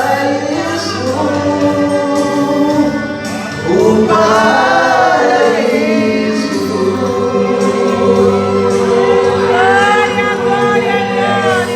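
Voices singing a Portuguese gospel hymn, with long held notes that waver, over a steady sustained accompaniment.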